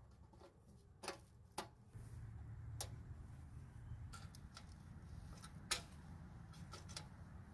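Scattered light clicks and taps as a plastic fuel cap is screwed down and the control levers of a Predator 301cc small engine are moved by hand, over a faint low rumble; the sharpest click comes a little before the end.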